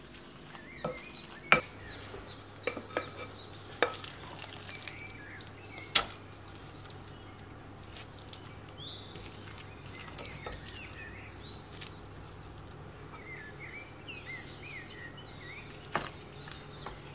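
Wooden spoon knocking and scraping against a ceramic mixing bowl and a metal cake tin as thick fruit cake batter is spooned in and smoothed: a scatter of sharp knocks, the loudest about six seconds in. Birds chirp faintly in the background in the second half.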